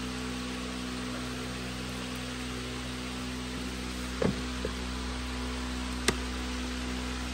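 Steady hum and hiss, broken by a couple of soft knocks a little past halfway and one sharp click about six seconds in, as the slotted lid of a red plastic chicken trough feeder is set down over the feed.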